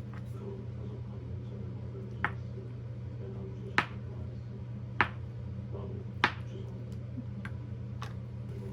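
A steady low hum with a few sharp clicks spaced a second or more apart, four of them clearly louder than the rest.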